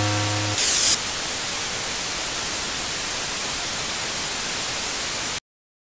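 Television static hiss, steady, with a brief louder, sharper burst of hiss about half a second in. A low electronic buzzing tone ends just before that burst, and the static cuts off suddenly near the end.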